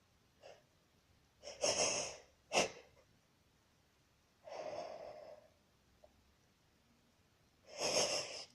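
A woman's breathing as a sneeze builds: noisy gasping breaths, with a short sharp one about two and a half seconds in and a longer sighing breath in the middle. A last deep gasp near the end leads straight into the sneeze.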